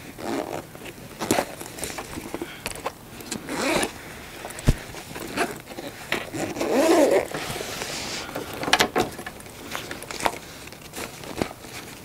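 Zipper on a fabric camera carrying bag being pulled open around the bag in a series of uneven rasping strokes, louder about halfway through, with rustling and a few sharp clicks from handling the bag.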